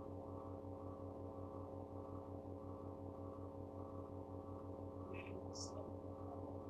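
A steady, faint low electrical hum with many overtones, its lowest part pulsing several times a second. About five seconds in there are two brief faint high ticks.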